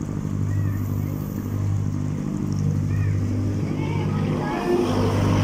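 Motor cruiser's engine running steadily at low speed, a low even hum that grows a little louder near the end.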